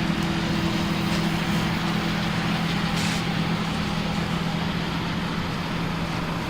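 John Deere 9660STS combine running steadily while harvesting soybeans: a constant low engine hum over a broad, even rushing noise of its machinery.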